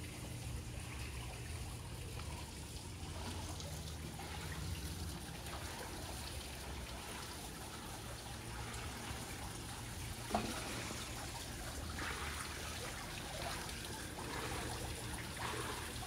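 Water trickling steadily in a small garden water feature with a wooden waterwheel, over a low background rumble, with one brief sharp knock about ten seconds in.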